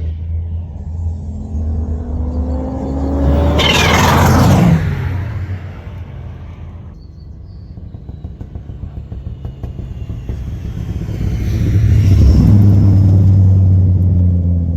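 Race car engine at full throttle, rising in pitch as it approaches and passing loudly about four seconds in, its pitch dropping as it goes by. A second engine sound swells again near the end with a deep steady drone.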